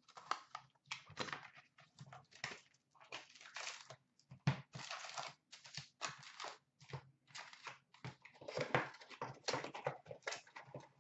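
A cardboard hockey card box being unwrapped and opened by hand and its packs pulled out: a run of irregular rustling and crinkling of plastic wrap and cardboard, in short uneven bursts.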